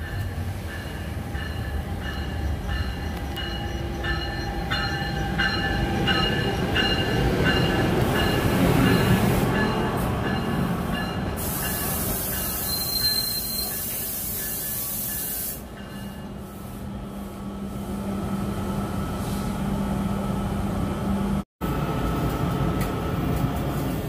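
NJ Transit commuter train, led by an ALP-45DP locomotive, rolling into the station and passing close by, with steady rail rumble and wheel squeal. A repeated ringing about twice a second runs through the first eight seconds or so, and the sound drops out for an instant near the end.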